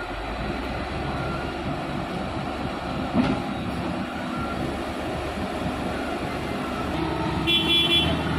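Heavy diesel engines of a Caterpillar motor grader and a loaded Hino dump truck running under load as the grader starts towing the stuck truck by chain. A single sharp knock about three seconds in, and a brief high whine near the end.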